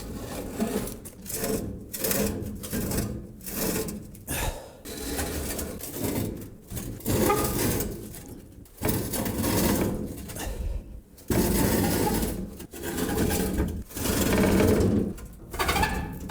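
A Woodland Mills HM130MAX bandsaw mill sawhead being shoved into place across a floor, scraping and rumbling in uneven bursts with short pauses between pushes.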